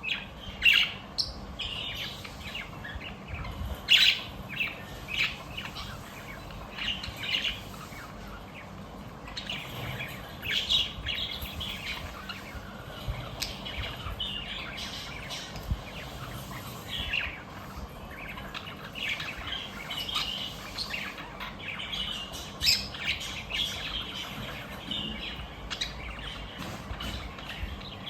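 Budgerigars chirping and chattering: a constant stream of short, sharp high chirps with occasional louder squawks.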